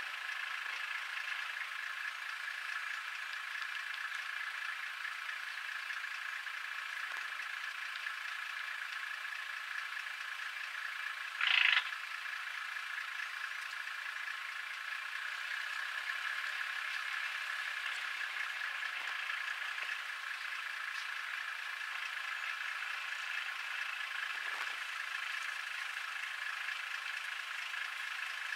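Steady high-pitched chorus of calling animals, with one brief louder sound about eleven and a half seconds in.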